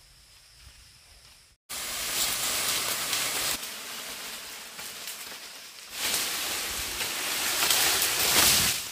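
Dry leaves and branches rustling in a loud, steady rush that starts suddenly a little over a second in, eases in the middle and swells again to its loudest near the end.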